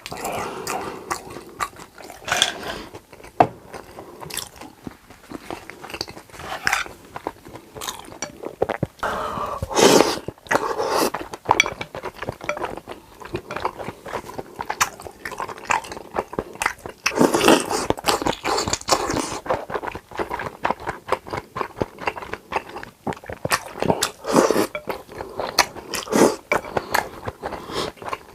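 Close-miked eating: a person biting, crunching and chewing food in irregular clusters of wet smacks and crackles, with louder bites about ten seconds in and again around seventeen to nineteen seconds.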